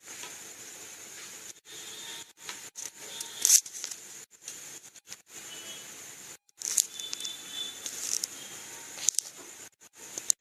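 Rustling, scraping and a few sharp clicks as the box and packaging of a feature phone are handled and opened. The loudest clicks come about three and a half seconds in and again near the end, over a steady hiss.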